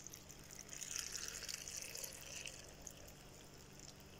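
Tap water poured from a plastic bottle into a glass jar packed with peppers, a faint steady pour starting just under a second in and fading out about three seconds in: topping up the pickle brine.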